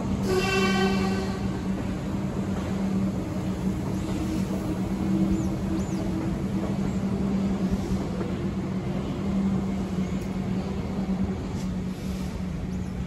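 Heritage train's carriages rolling away along the rails below, a steady rumble with a constant low hum running through it. A short pitched train whistle, about a second long, sounds just after the start.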